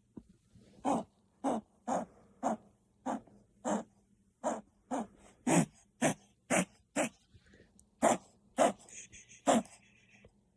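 Chihuahua puppy reverse sneezing from kennel cough: short, sharp inhalations repeated about twice a second in a long unbroken run.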